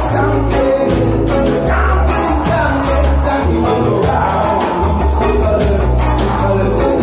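Live rock band playing: electric bass, electric guitars and a drum kit keeping a steady beat.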